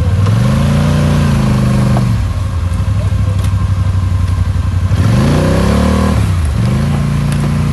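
ATV engine revving hard three times over a steady running note, while its mud tires spin in a deep mud rut: the machine is bogged down and not climbing out.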